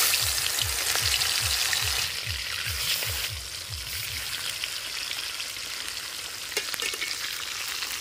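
Pieces of tuna frying in hot mustard oil in a metal kadai, with a dense crackling sizzle. It is loudest in the first couple of seconds as the pieces go into the oil, then settles to a steady crackle.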